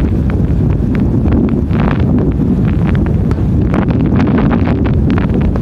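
Heavy wind noise on a smartphone microphone, with aerial fireworks shells bursting and crackling over it in irregular sharp reports that come thickest over the last two seconds.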